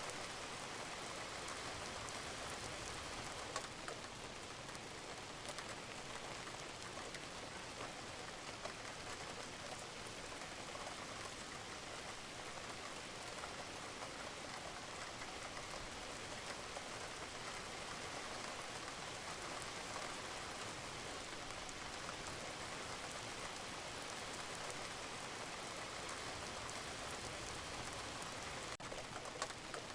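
Steady rain falling on a roof, an even hiss with a few louder single drops landing now and then.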